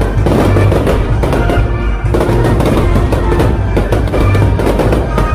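Loud music with fireworks bursting and crackling in rapid succession over it, shell after shell.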